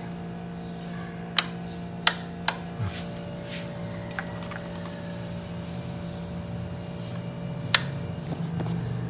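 Slow juicer's electric motor running empty with a steady hum, with a few sharp clicks over it, the loudest near the end.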